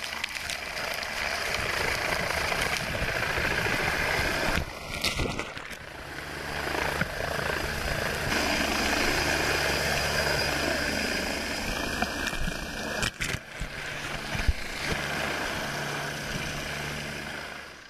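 Army helicopter hovering low overhead, its rotor noise mixed with wind buffeting and sea water splashing over a diver's headcam. The sound dips briefly about five seconds in, and a few sharp knocks come around thirteen to fourteen seconds.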